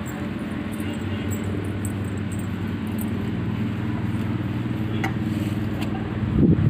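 Steady low hum of a running motor, with a brief louder sound near the end.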